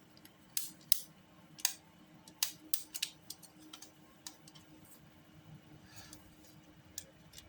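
Scattered light clicks and taps, irregular and a second or so apart, as small screws and the plastic fan housing of a laptop stand are handled and fitted together.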